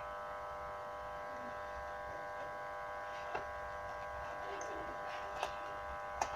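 Steady electrical buzz made of many even tones, with a few faint clicks and plastic crinkles as a utility knife cuts through bubble wrap on a small box.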